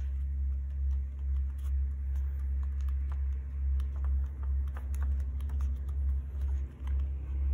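Fingers pressing and smoothing small paper cut-outs onto a folded sheet of paper, giving scattered small paper clicks and taps. A steady low hum runs underneath and is the loudest thing.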